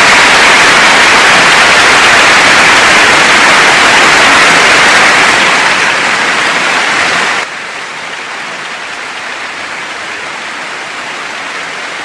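Stadium crowd cheering, one dense wall of noise that eases slightly about six seconds in, then drops suddenly about seven and a half seconds in to a quieter, duller crowd hiss.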